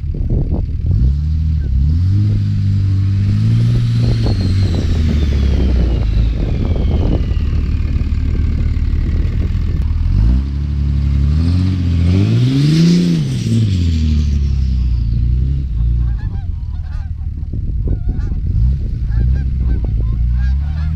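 Dodge Ram pickup's Cummins turbo-diesel revving as the truck ploughs through deep snow, the engine note rising and falling several times. The loudest rev comes when the truck is closest, about two-thirds of the way through. A high whistle slowly falls in pitch early on.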